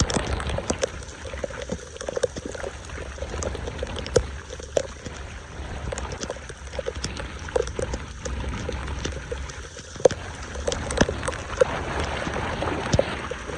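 Floodwater pouring and gurgling into a storm drain, with many scattered sharp clicks and splashes throughout and a few louder knocks near the end.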